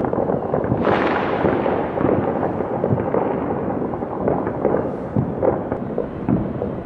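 Many fireworks and firecrackers going off across a city at once, a dense, unbroken run of bangs and pops with a louder burst about a second in.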